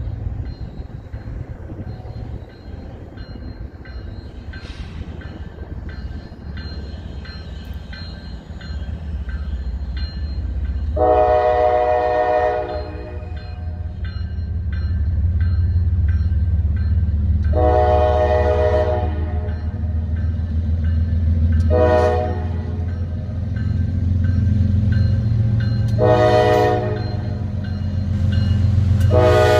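Kansas City Southern GE diesel locomotives approaching, their low engine rumble growing louder as they near. Over it the lead unit's multi-chime air horn sounds a sequence of blasts: long, long, short, then two more longer ones near the end, in the pattern of a grade-crossing warning.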